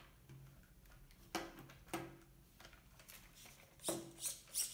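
A few light plastic clicks and taps from a 1/18 scale RC monster truck's front steering linkage being worked by hand, each brief, some with a short low ring.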